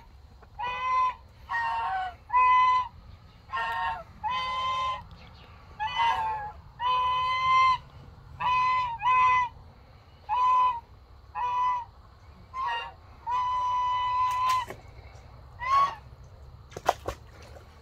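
Domestic geese honking over and over, roughly one call a second, with one longer honk held about a second past the middle.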